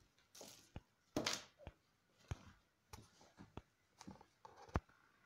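Faint rustling of trouser fabric being handled on a table, two short swishes, the louder a little over a second in, with about seven small sharp clicks and taps scattered through.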